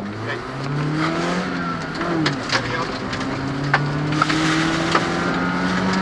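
Rally car engine revving up about a second in and then pulling along steadily, with scattered knocks and rattles from the car and the gravel, heard from inside the cabin. The car is running on after a roll that has cracked its windscreen.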